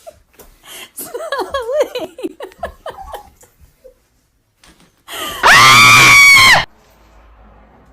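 A high-pitched voice laughing, then a loud, shrill, steady scream held for about a second that cuts off suddenly.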